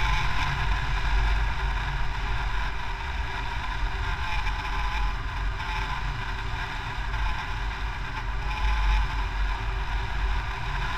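Wind rushing over the microphone of a camera mounted on a hang glider in flight: a steady deep rumble of buffeting with a hiss above it, swelling a little now and then.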